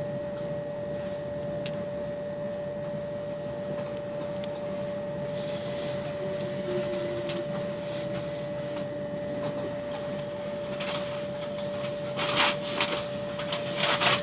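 Interior of a Great Western Railway Class 387 electric multiple unit standing at a station. A steady electrical hum with one even tone runs over low ventilation noise, and a few knocks and rustles come near the end.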